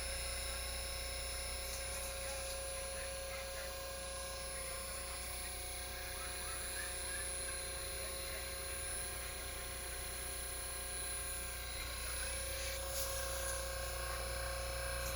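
Steady electrical hum: a low drone with a few constant high-pitched tones over it.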